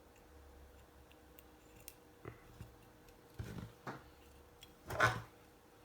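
Faint clicks and rustles of small parts being handled, with short louder noises in the second half, the loudest about a second before the end.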